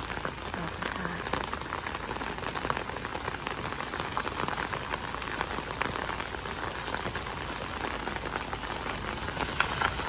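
Heavy rain falling on floodwater and a wet asphalt road: a steady hiss dotted with many small ticks of drops.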